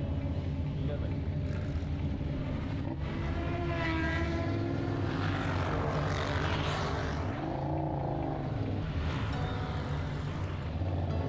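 Vehicle engine running at a steady low drone, with higher notes wavering up and down in pitch around the middle.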